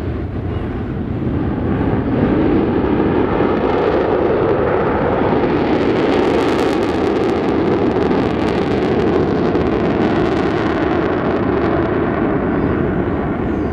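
Avro Vulcan bomber's four Rolls-Royce Olympus turbojets in a display pass overhead. The jet roar builds over the first couple of seconds, turns crackly and loudest midway, and eases near the end.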